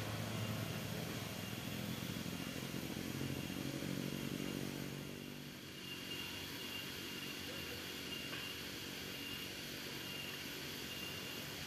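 A vehicle's engine running as it drives away, fading out about five seconds in. After that, a steady high insect drone over a soft background hiss.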